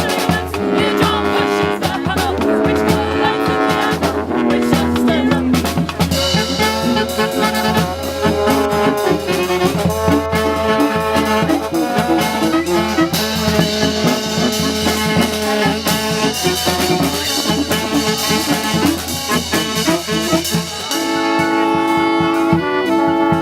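Live brass band playing an instrumental passage: horns hold chords over drums and a low bass line, which drops out near the end.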